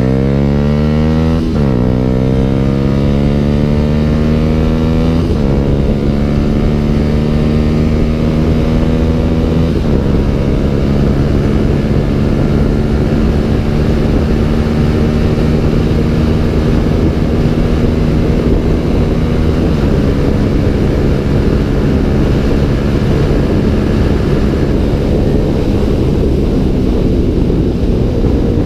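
Yamaha YZF-R125's 125 cc single-cylinder four-stroke engine, breathing through a Danmoto Carbon GP aftermarket exhaust, accelerating hard through the gears. The revs climb and drop at four upshifts, spaced further apart each time as the climb in each gear slows toward top speed, with wind rushing over the microphone.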